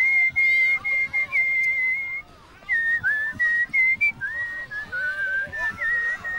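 A person whistling a slow tune: one long held high note lasting about two seconds, then a run of shorter notes joined by small slides.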